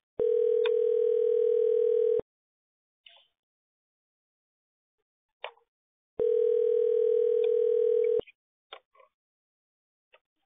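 Telephone ringback tone heard over the line while a call waits to be answered: two rings of about two seconds each, four seconds apart, with faint clicks on the line between them.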